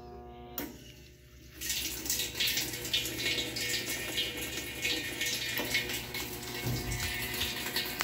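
Water running into a Whirlpool top-load washer's tub as it fills during its automatic test mode, a steady rush starting about a second and a half in. Before that, a steady hum stops about half a second in.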